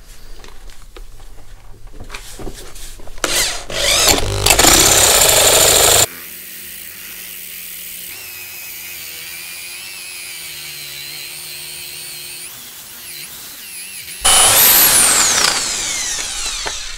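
Power drill (hammer drill) with a 32 mm flat spade bit boring down into the end of a pine log, the motor whining under load as the bit chews through the wood. The level drops abruptly about six seconds in to a quieter steady whine, comes back loud about fourteen seconds in, then winds down with a falling whine.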